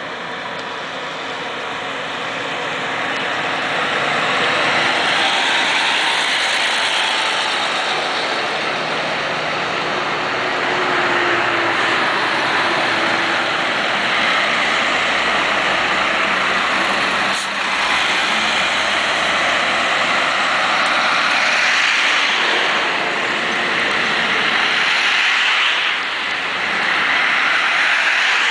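Ikarus 280 articulated bus driving past while towing a broken-down Jelcz 120M bus, its diesel engine and tyres growing louder over the first few seconds as it nears, then steady road traffic noise as a truck and cars go by. One sharp click about 17 seconds in.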